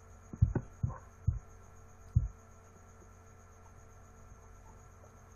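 A few short, soft low thumps in the first two and a half seconds, then only a steady low electrical hum.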